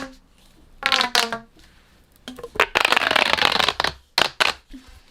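Corrugated plastic pop tubes being stretched and squashed, giving bursts of rapid ratcheting clicks and rattling pops, some falling in pitch, with a longer burst in the middle and a few sharp clicks after it.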